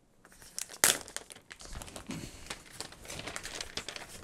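Thin clear plastic wrap crinkling and crackling as it is pulled by hand off a new smart display, with one sharp crackle a little under a second in.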